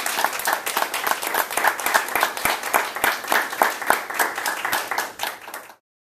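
Small audience applauding, many hands clapping steadily; it stops suddenly near the end.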